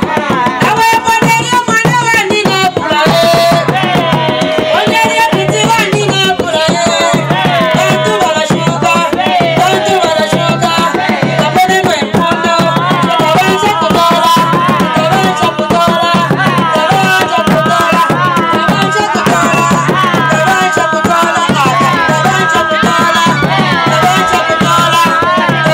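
Traditional Zambian drumming with a steady beat and a woman's voice singing over it, music for dancing.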